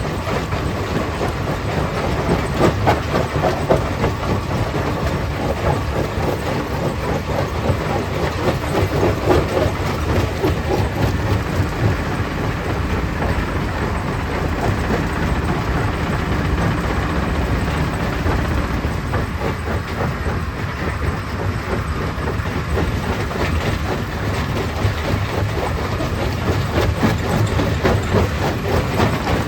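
Stone crusher plant running: a steady heavy rumble with a constant rattle and clatter of rock being crushed and moved.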